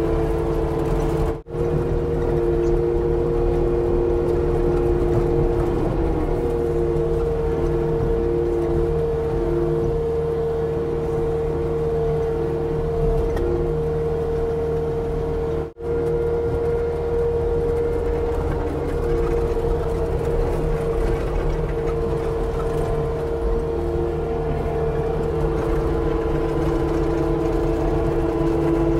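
Diesel engine of a tracked Cat compact machine working under load, with a steady high hydraulic whine over the engine; the lower note of the whine flutters on and off for several seconds in the middle as the load changes. The sound cuts out for an instant twice.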